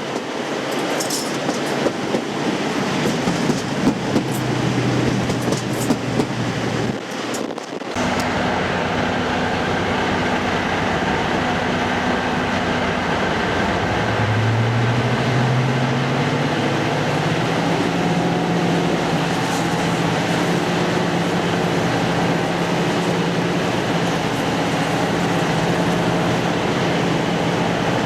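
A train running over the rails with clicks from the wheels on rail joints. About eight seconds in this gives way to a diesel locomotive's engine running steadily, whose pitch rises in steps from about halfway through as it powers up.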